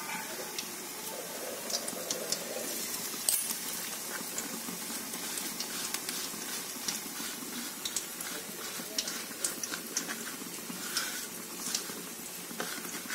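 Shrimp patties deep-frying in oil in a kadai over a low gas flame: a steady sizzle with scattered small pops and crackles, one sharper pop about three seconds in.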